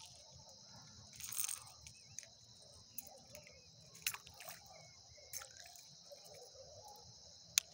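Insects chirring in a steady high drone. A short rustle comes about a second and a half in, and several sharp clicks follow, the loudest just before the end.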